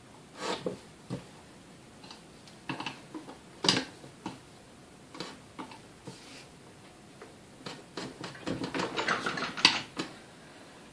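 Metal clicks and knocks as a screwdriver and hands work on the planetary housing of a vintage KitchenAid Model 3B stand mixer, with a busier run of rapid scraping and clicking near the end.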